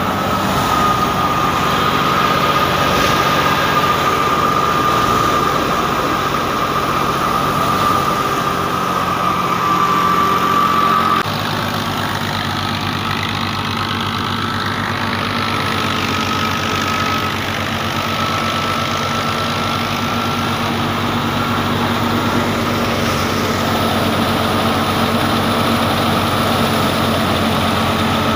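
Ghazi farm tractor's diesel engine running steadily under load, driving a wheat thresher through its PTO shaft, with the thresher's steady high whine over the engine. The sound shifts abruptly about eleven seconds in.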